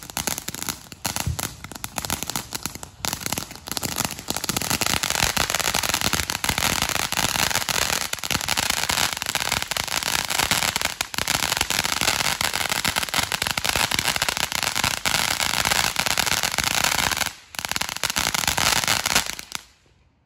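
Ground fountain firework spraying sparks with a dense crackling hiss. It builds over the first few seconds, holds steady, drops out briefly near the end, then cuts off as the fountain burns out.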